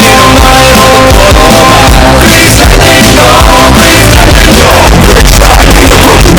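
Loud rock-and-roll band music.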